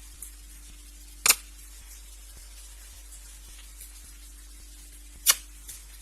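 Two short, sharp knocks about four seconds apart over a faint steady hum.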